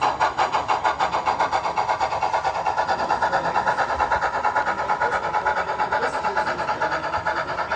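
Model steam locomotive's sound unit chuffing fast and evenly, about seven or eight chuffs a second, after picking up speed just before.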